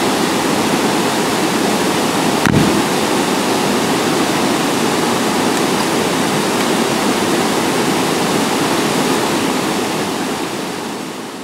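Steady rush of a waterfall and river water, with a single short thump about two and a half seconds in.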